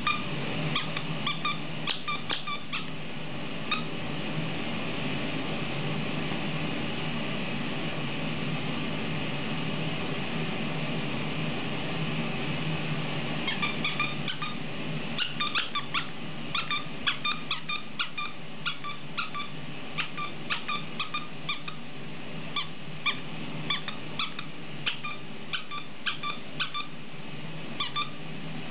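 Plush cow squeaky toy squeaking in short, pitched squeaks as a dog chews it: a quick cluster at the start, a lull, then frequent squeaks about one or two a second through the second half. A steady low hum runs underneath.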